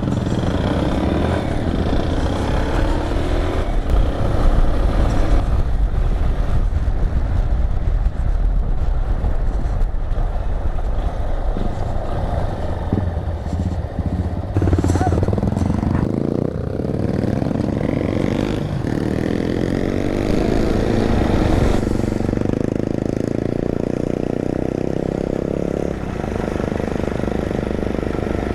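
Yamaha Ténéré motorcycle engine running while riding on a dirt road, its pitch rising and falling as the rider works the throttle through the middle of the stretch. Wind rumbles on the microphone.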